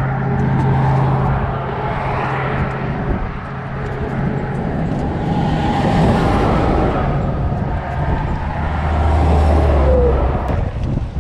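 Highway traffic passing close by, cars and heavy trucks including a car-carrier: a loud, continuous rush of tyres and engines, with a low engine hum near the start and a deeper drone about nine seconds in.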